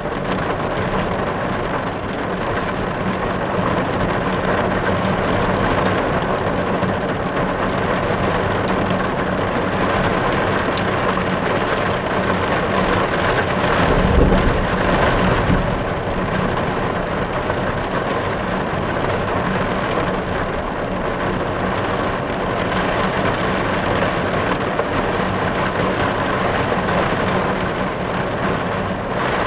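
Steady heavy rain drumming on a car's roof and windows, heard from inside the car. About halfway through there is a brief low rumble.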